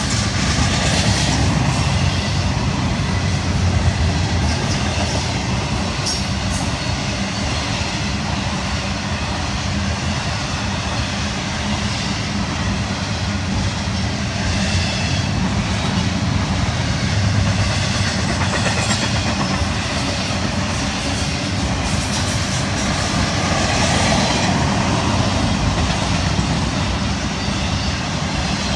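Double-stack intermodal well cars of a Florida East Coast Railway freight train rolling past close by: a steady rumble of steel wheels on rail, with occasional clicks.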